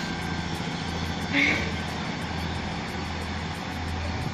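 Class 153 diesel multiple unit's underfloor Cummins diesel engine running with a steady low drone as the single-car train pulls away from the platform. A brief louder sound comes about a second and a half in.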